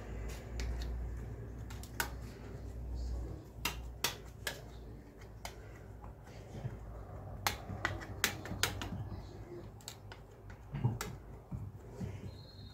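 Irregular sharp clicks and taps from a small glass pressing a crumb base into a square metal cake frame, the glass knocking against the frame and tray. A low hum stops about three seconds in.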